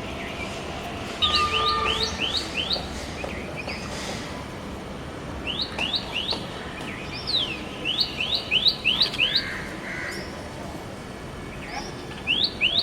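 A small songbird calling in short runs of quick, rising notes, about four a second, in four bursts, over a steady background noise.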